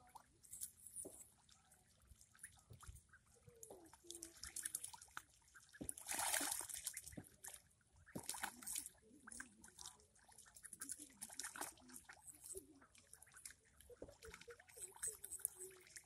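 Ducklings swimming and dabbling in shallow muddy water: faint, irregular small splashes and trickles, with a louder stretch of splashing about six seconds in.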